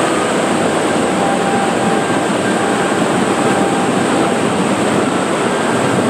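Steady, loud rush of churning white water in a wild-river water slide channel.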